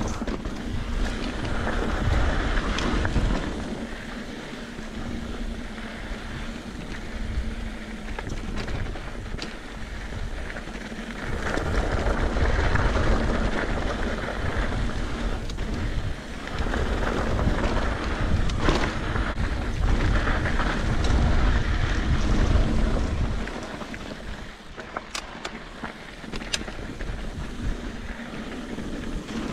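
Mountain bike riding on a dirt trail: wind buffeting the microphone over tyre rumble, swelling and easing in long stretches, with a few sharp clicks and clatters from the bike.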